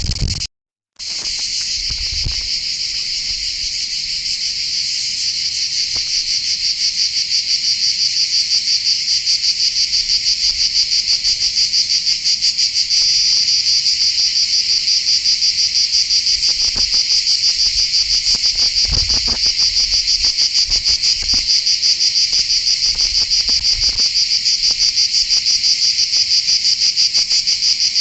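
Loud, dense insect chorus: a steady high chirring with a fast, even pulse, dropping out for about half a second near the start.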